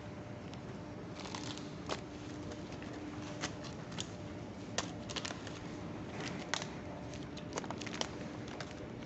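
Indoor food-court ambience: a steady background hum with scattered sharp clicks and clatters, like plastic cups and utensils being handled.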